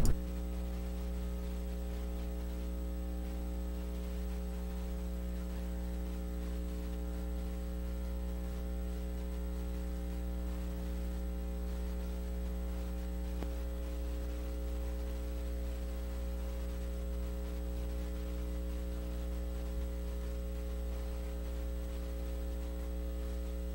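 Steady electrical mains hum: a low, unchanging hum with a stack of higher overtones.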